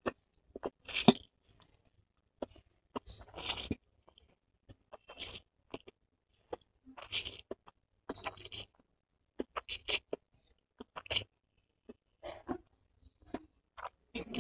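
Close-up eating sounds of a mouthful of stir-fried chowmein noodles being chewed and slurped. The sound comes in short, separate bursts of wet crunching, with silent gaps between them.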